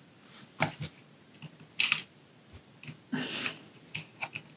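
Irregular light clicks and taps of a small precision screwdriver and screw against the plastic housing of a robot vacuum's laser distance sensor module as a screw is driven in by hand, with a denser run of clicks about three seconds in.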